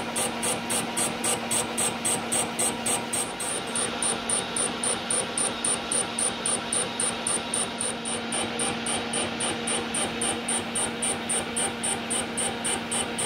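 Schaublin 102VM lathe turning a workpiece with a carbide-insert tool: a steady machine hum with a regular pulse about four to five times a second.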